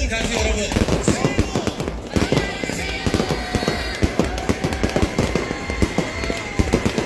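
A fireworks display going off in rapid, overlapping bangs and crackles, with music playing underneath.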